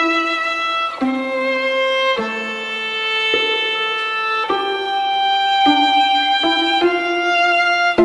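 Background music: a slow melody of held notes, each changing pitch about once a second.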